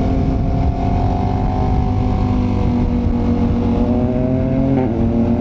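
KTM 1290 Super Adventure's V-twin engine pulling uphill under load. Its note holds steady, then rises gradually, with a brief dip about five seconds in.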